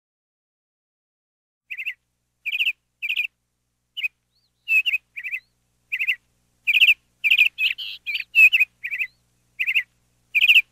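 Meadowlark chirping: short, high chirps, each a quick run of a few notes, in an irregular series that begins about two seconds in, with a busier tangle of notes a little past the middle.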